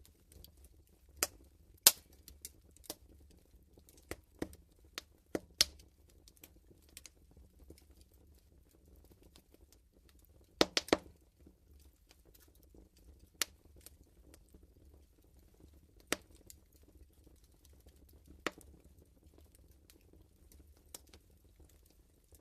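Wood fire crackling in a fireplace: sharp pops at irregular intervals, with a quick cluster of pops about eleven seconds in.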